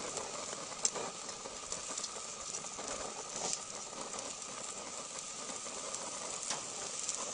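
Steaks sizzling steadily on a grill grate, with a few faint clicks as metal tongs turn and move a steak.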